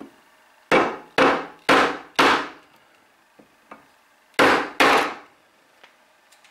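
A hammer striking a small wooden stick used as a soft punch, driving the soft brass saw screws through a wooden saw handle. Four sharp knocks about half a second apart, a pause with a couple of faint ticks, then two more knocks close together.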